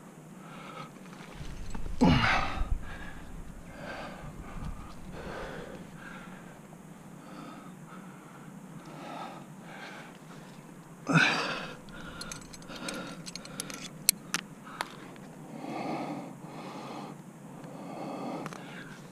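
A rock climber's heavy, rhythmic breathing under effort, with two loud exhaled gasps that fall in pitch, about two seconds in and again about eleven seconds in. Around fourteen seconds a few sharp metallic clicks come from a quickdraw and its carabiners being handled.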